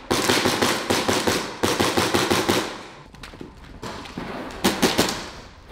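HPA-powered airsoft guns firing in rapid full-auto strings: two long strings of quick shots with a short break between them, a quieter lull in the middle, then another loud string near the end.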